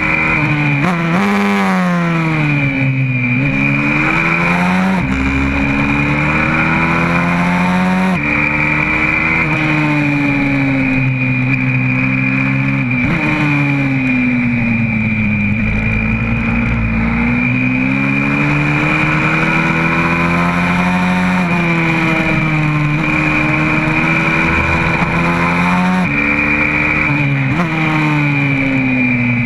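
YCF 125cc four-stroke single-cylinder pit bike engine at racing speed, heard from a camera on the bike: the revs climb through the gears with a sudden drop in pitch at each upshift, and fall away in long glides as it slows for corners. A steady high whine sits over the engine note throughout.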